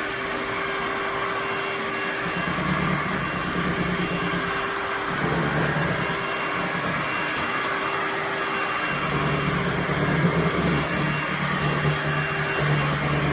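Shark HydroVac MessMaster WD161 wet-dry vacuum mop running steadily, with a lower hum that comes and goes in several stretches.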